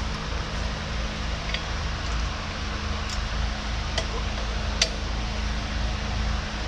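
A few light metallic clicks as bolts are started by hand in a steel front-end loader mounting bracket, the loudest two about four and five seconds in, over a steady background hum.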